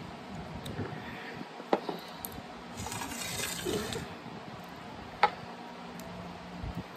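Two sharp clinks about three and a half seconds apart, the second louder, with a short rustle between them: a drinking glass and dishes being set down and cleared from a wooden table.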